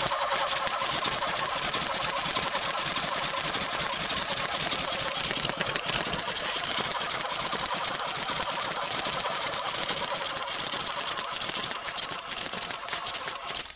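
Gas-powered airsoft minigun, its multi-barrel cluster spinning and firing one long unbroken burst of BBs, heard as a dense, rapid, even rattle of shots. It runs on compressed nitrogen and stops just before the end.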